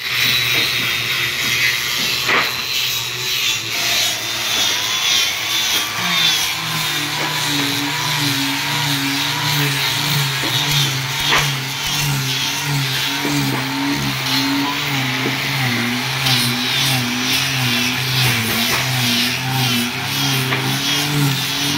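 Two angle grinders fitted with sanding discs running against wooden boards: a steady whirring hiss, with a low motor hum that grows stronger about six seconds in and wavers in pitch as the discs are pressed into the wood.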